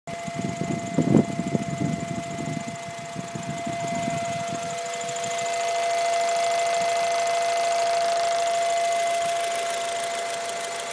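Acura Integra GSR engine running with a steady high-pitched hum from the breather tube between the cylinder head and the intake tubing, the sign of a bad PCV valve. The hum grows louder about halfway through. A low rumble with a few knocks fills the first few seconds.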